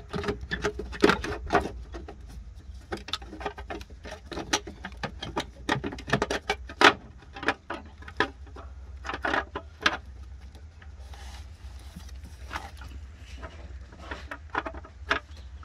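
Hand tools and metal engine parts clicking and knocking in a quick, irregular run as parts are worked back together. The knocks are busiest over the first ten seconds or so and sparser after, over a steady low hum.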